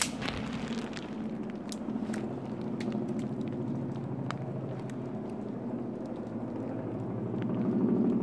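Helicopter passing overhead: a steady low rotor and engine drone with a fast chopping pulse, growing louder toward the end. A sharp click comes right at the start.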